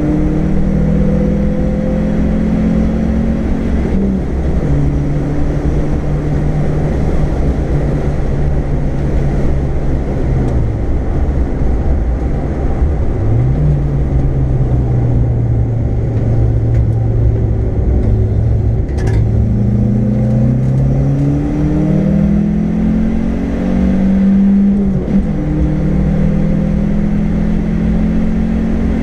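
Car engine heard from inside the cabin while driven hard around a circuit, its pitch holding, dropping and climbing again through gear changes and corners, over a constant rumble of road and tyre noise. A single sharp click comes about two thirds of the way through.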